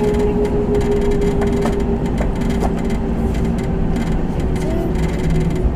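Airbus A321 cabin while taxiing: the jet engines at idle give a steady low rumble with a steady hum above it, and a few light clicks and knocks come through the airframe as the aircraft rolls.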